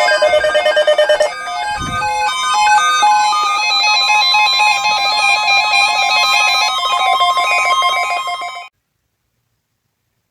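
Synthesized music: a bright, ringtone-like electronic melody over chords, with a low thump about two seconds in. It cuts off abruptly about nine seconds in.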